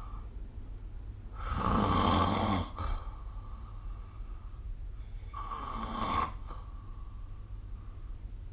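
A sleeping person snoring, two snores in all. The first, about a second and a half in, is the louder and lasts over a second; the second comes about five seconds in. A low steady hum runs underneath.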